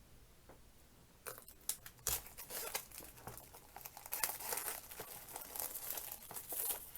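The seal of a product box being cut and torn open, with crinkling and tearing packaging. It starts about a second in and carries on as a busy run of crackles and rustles.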